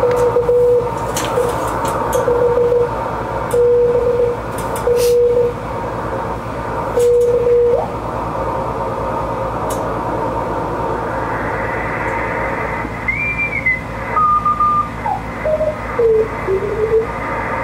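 Ten-Tec Scout 555 ham transceiver receiving on the air through its newly fitted speaker: steady band hiss with occasional crackles and a Morse code signal, one steady tone keyed on and off. From about twelve seconds in the tuning is turned and signals sweep through at changing pitches.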